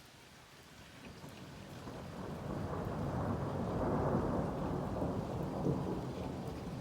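Thunder rumbling in, building gradually from about a second in to its loudest around four seconds, then rolling on, over light rain.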